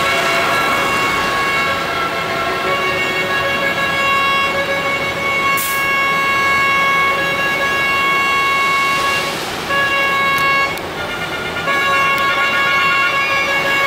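Truck air horns sounding in long, steady blasts, several tones at once, over street traffic noise; the horns drop out briefly twice in the last third.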